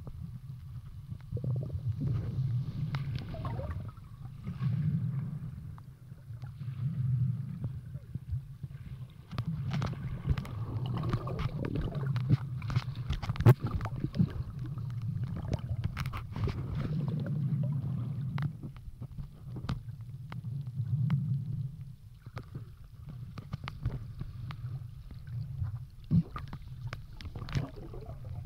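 Muffled underwater sound of shallow sea water moving: a low rumbling surge that swells and fades every couple of seconds, with scattered sharp clicks and crackles.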